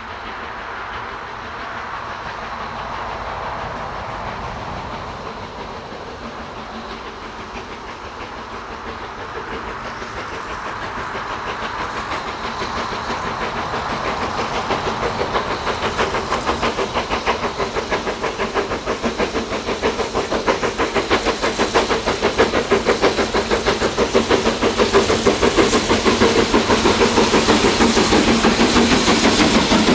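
Steam locomotive approaching and working hard, growing steadily louder, with a fast, even rhythm of beats and a steam hiss.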